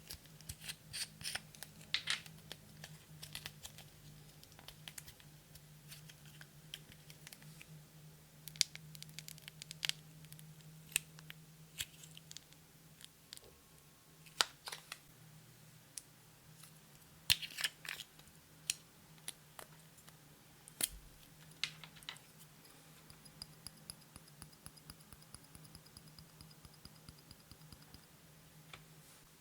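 Slime being handled and mixed, giving scattered sharp clicks and snaps over a steady low hum.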